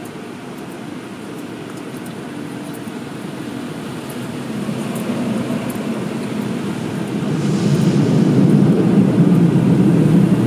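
Automatic car wash machinery and water spray heard through the closed car: a steady rushing noise that grows louder from about four seconds in and is loudest over the last few seconds.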